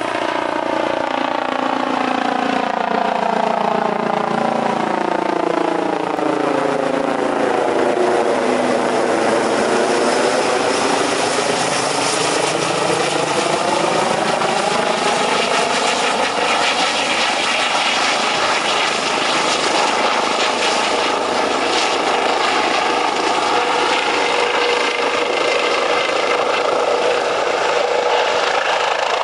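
Airbus EC135 P2+ twin-turbine helicopter with a Fenestron ducted tail rotor flying past and descending toward the ground: rotor and turbine sound with a whine whose pitch slides down over the first several seconds, rises again through the middle, then holds steady.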